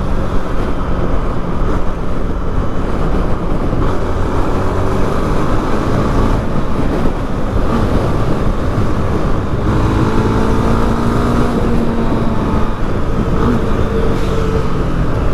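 A single-cylinder Honda Twister motorcycle being ridden in slow traffic: the engine runs under a steady rumble of wind and road noise on the microphone, and its pitch shifts about ten seconds in.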